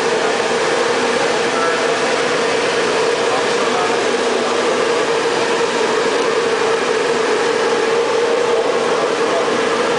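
1959 RCA H-Set SSB T-3 shortwave transmitter running after power-up: a steady, loud rush of cooling air with a steady droning hum underneath.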